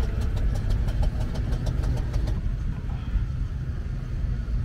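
Small Citroën van's air-cooled flat-twin engine running as the van drives slowly past, with a fast, even ticking that stops about halfway through, over a steady low rumble.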